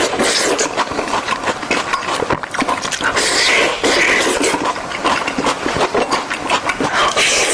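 Close-miked chewing of fresh fruit: a continuous run of wet, crackling clicks and smacks.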